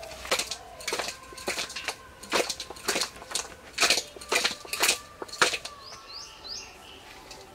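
Raw fish pieces being mixed with salt and turmeric in a stainless steel bowl, worked by hand and tossed in the bowl: a string of irregular slaps and knocks against the metal. A bird chirps three times about six seconds in.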